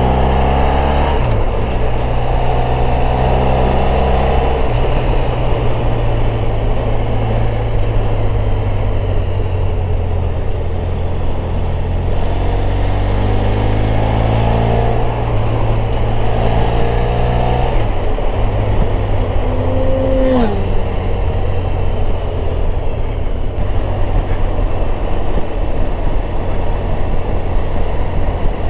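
Motorcycle engine running at road speed under wind rush, its note rising a few times as the bike accelerates. About twenty seconds in, an oncoming vehicle passes with a short falling pitch.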